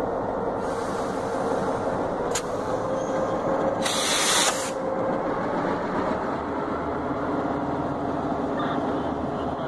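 Diesel-electric locomotives idling steadily with a held engine drone. About four seconds in comes a loud half-second burst of compressed air hissing, after a fainter stretch of hiss earlier.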